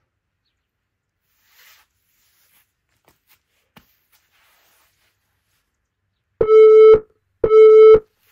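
Interval timer's countdown beeps: two short, identical electronic beeps a second apart near the end, sounding the last seconds of the rest period before the next work round. Before them there is only a faint rustle.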